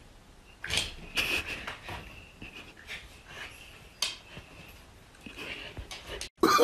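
Samoyed dog breathing and panting in a few short breathy puffs, some with a faint high squeak.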